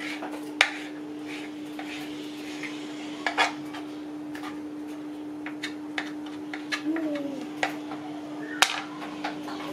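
Kitchen knife cutting sandwich cheese on a plastic cutting board: scattered sharp clicks and knocks as the blade meets the board, the loudest about half a second in, at three and a half seconds and near the end. A steady hum runs underneath.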